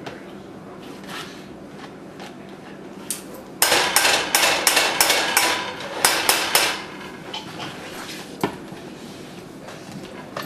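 Metal spoon knocking rapidly against a stainless steel saucepan, a quick run of sharp clanks lasting about three seconds, then one more knock: shaking butter off the spoon into the pot.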